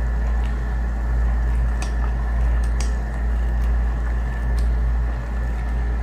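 A steady low rumble and hum, with a few light clicks of a metal ladle against an aluminium pot as the coconut-milk vegetable stew is stirred.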